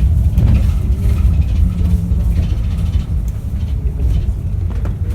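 Yutong E12 battery-electric bus on the move, heard as a steady low rumble of road and body noise.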